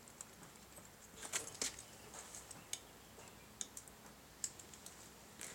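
Metal snap hooks on homemade webbing straps clicking and clinking as they are clipped onto a motorcycle's sissy bar rack and bag. Scattered light clicks, with a quick cluster about a second in.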